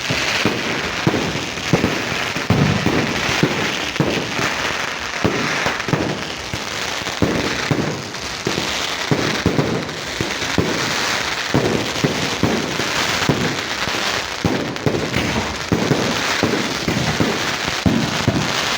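Fireworks display: a dense, unbroken barrage of shells bursting, with sharp bangs several times a second over a continuous din of overlapping reports.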